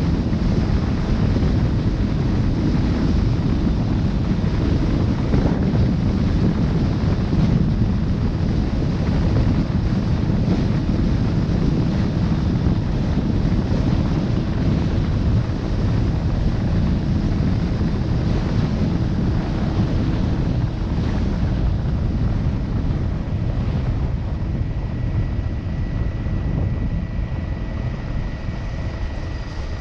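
Steady wind buffeting the microphone of a moving camera, a dense low rumble that eases slightly near the end, when a faint steady high tone comes in.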